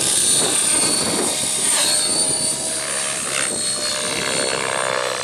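Blade 700 X electric RC helicopter in flight: a high, steady motor and gear whine over the noise of the spinning rotor blades. The pitch wavers in the middle as it climbs and banks.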